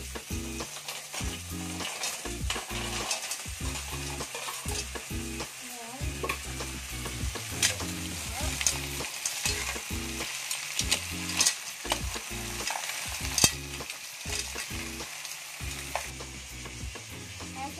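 Mussels in their shells being stirred with a metal spoon in a hot aluminium pot, sizzling steadily, with irregular clinks of shell and spoon against the pot.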